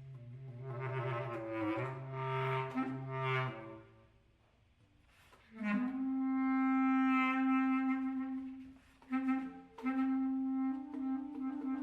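Solo clarinet playing contemporary concert music. A low, richly overtoned note swells and fades over the first few seconds. After a short pause, a long held note enters with an upward scoop about halfway through; it breaks off briefly with a couple of short notes and is then sustained again.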